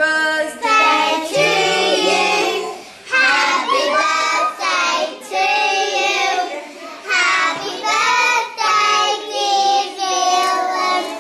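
Group of children singing a birthday song together in held phrases with short breaks between them.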